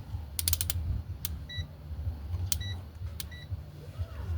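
Digital multimeter being set up for a resistance reading: a quick run of clicks, then three short high beeps, each of the last two with a click as it is switched and pressed. A steady low hum runs underneath.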